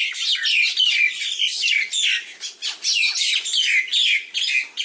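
A group of birds giving dense, rapid, overlapping high calls, many a second, as they tussle together; the watchers first take it for mating, then for a fight.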